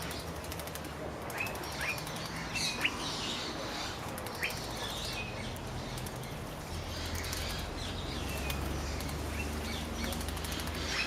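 A bathing bird fluttering its wings in the water in bursts, with short sharp chirps from birds throughout.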